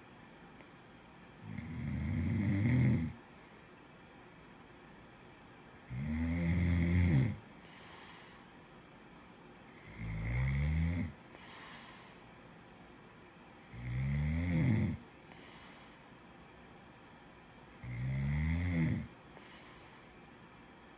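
A sleeping person snoring: five snores, each about a second and a half long, coming roughly every four seconds with quiet breathing gaps between.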